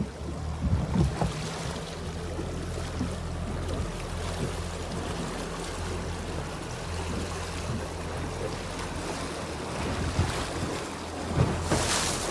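Outboard motor on a fishing boat running steadily with a low hum, over the wash of choppy water and wind on the microphone. A brief louder rush comes near the end.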